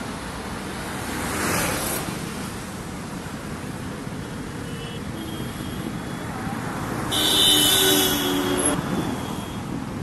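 Road traffic going by close at hand, a steady roar of tyres and engines. One vehicle swells past in the first two seconds, and a louder one goes by about seven seconds in.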